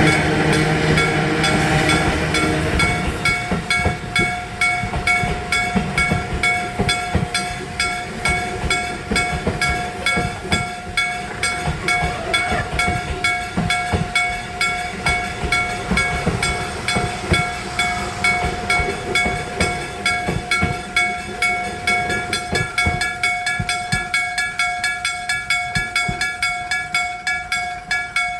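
Electric striking bell of a Japanese level crossing ringing in a fast, steady rhythm as a train of ED45 electric locomotives hauling 211-series cars passes, the wheels knocking over the rail joints. A low steady hum sounds for the first few seconds.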